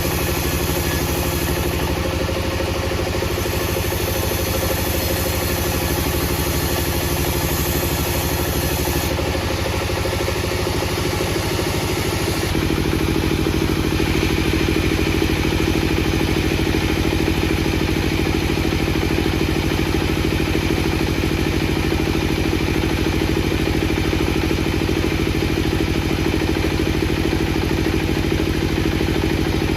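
Heavy wood-processing machinery running steadily, an engine-like drone with some clatter. About twelve seconds in it switches abruptly to a louder, steadier drone.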